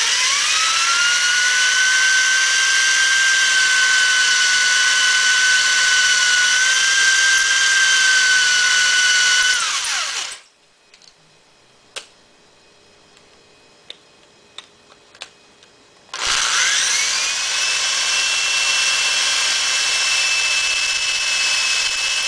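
Electric drill reaming out the primer pocket of a .223 brass case. It runs with a steady whine for about ten seconds, then winds down. After a quiet stretch with a few light clicks of handling, it starts again, rising in pitch to a steady run.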